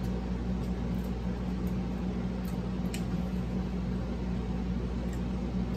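A steady low hum, with a few faint soft clicks.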